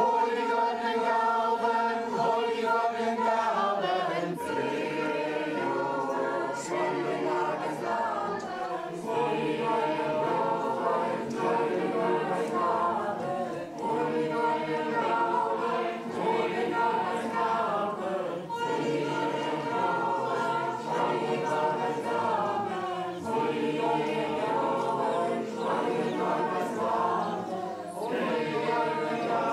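Choral music: a choir singing held, harmonised notes that change every few seconds.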